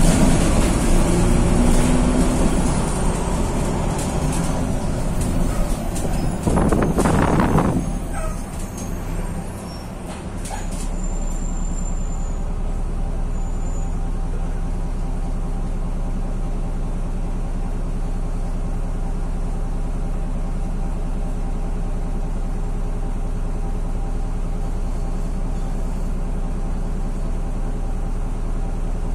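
VW 26.330 OTA city bus's rear-mounted diesel engine heard from inside the cabin, running and easing off as the bus slows. About seven seconds in there is a loud hiss of compressed air, then the engine settles to a steady idle as the bus stands.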